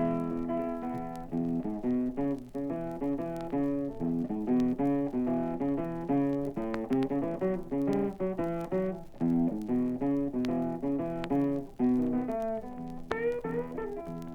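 Blues guitar playing an instrumental break between sung verses: a steady run of picked notes over a repeating bass pattern, with no voice.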